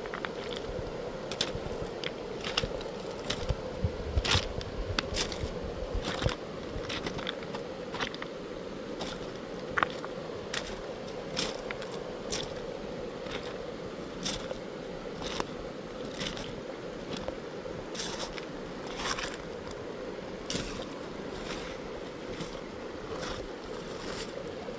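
Footsteps crunching and scraping on wet river gravel and cobbles, irregular, one or two a second at first and sparser later, over the steady rush of shallow flowing river water.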